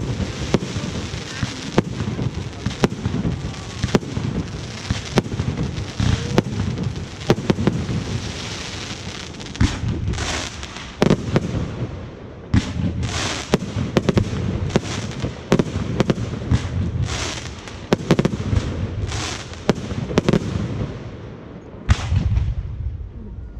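Fireworks going off: a dense, continuous run of bangs and crackling over a low rumble, thinning after about ten seconds into separate bangs with short hissing bursts between them.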